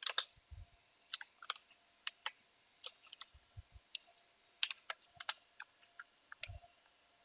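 Computer keyboard being typed on: irregular keystroke clicks, with a few heavier, deeper key thumps.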